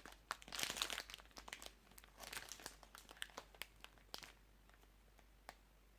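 Plastic snack wrapper crinkling in the hands as it is turned over, a run of small sharp crackles that thins out to a few after about four seconds.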